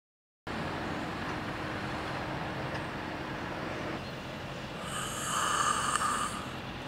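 A man snoring in his sleep over a steady background hum; the sound swells about five seconds in.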